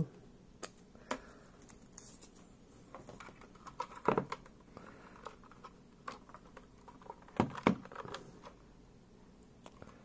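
Scattered clicks and knocks of a 60% mechanical keyboard being picked up and tilted in the hands. The loudest knock comes about four seconds in, and two more sharp ones come close together a few seconds later.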